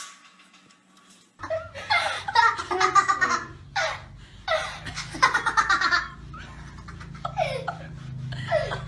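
A person laughing hard in repeated bursts, starting about a second and a half in after a quiet moment, the laughter easing off toward the end over a steady low hum.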